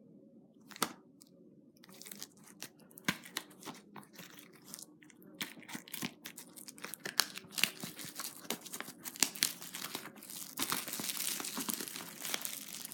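Plastic shrink-wrap being torn and crinkled off a Blu-ray case, with many sharp crackles from about two seconds in that thicken into steady crinkling near the end.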